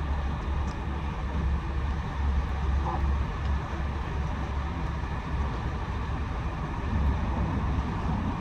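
Steady low rumble of a moving vehicle, with a faint hiss of road or track noise over it.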